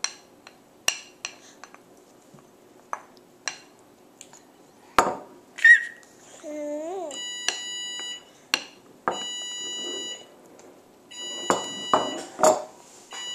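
A metal spoon clinks against a dish a few times, and a short high squeal comes about five seconds in. From about seven seconds a kitchen appliance's electronic alarm beeps in long steady tones about a second each with short gaps, typical of an oven or timer signalling that it is done.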